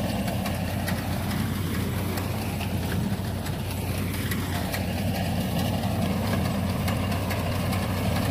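Tractor engine running steadily under load, driving a BCS reaper binder as it cuts wheat. A light, fast ticking clatter from the machine rides over the engine.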